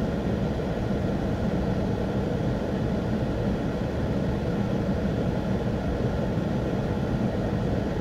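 Steady low cabin noise of a Pontiac Grand Prix idling at a standstill, heard from inside the car.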